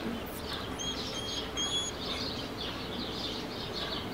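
Birds chirping in the background, with three short whistled notes starting a little under a second in, over a steady low outdoor hum.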